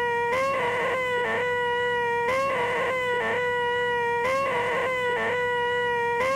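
A man's sustained, nasal, high-pitched 'eeeeh' whine, the 'most annoying sound in the world', held on one steady pitch with a short catch in the voice about once a second. It repeats in an even two-second cycle, as a loop.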